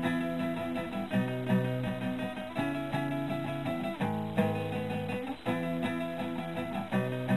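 Two acoustic guitars playing together, instrumental with no singing. The chords change about every second and a half.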